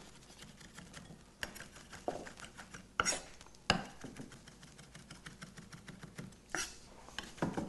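Chef's knife chopping soft chipotle peppers on a wooden end-grain butcher block: a run of light, quick knife taps on the wood, with a few sharper knocks.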